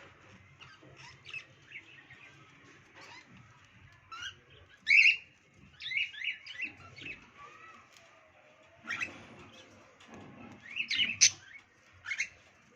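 Budgerigars chirping in short, scattered calls, loudest about five seconds in and again about eleven seconds in.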